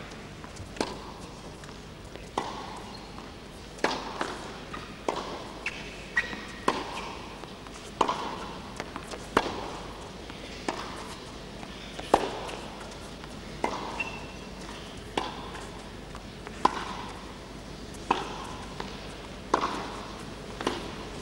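Tennis ball hit back and forth with rackets in a long rally on an indoor carpet court, a sharp pop about every second and a half.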